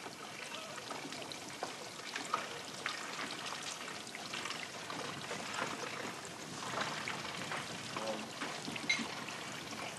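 A steady hiss with faint, indistinct voices of people talking.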